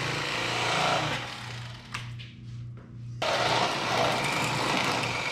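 Electric fillet knife buzzing as it cuts walleye fillets; it is switched off about two seconds in and started again about a second later.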